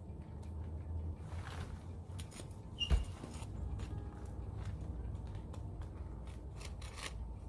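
Hand weeding: scattered scrapes and rustles of weeds and moss being pulled and peeled out of the soil with a small hand tool, with one sharp click about three seconds in.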